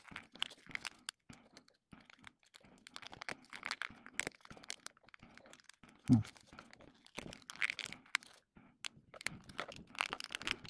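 Replacement lens being pressed and worked into an Oakley Frogskins sunglasses frame: scattered small clicks, creaks and scrapes of lens against frame. A loud dull thump about six seconds in.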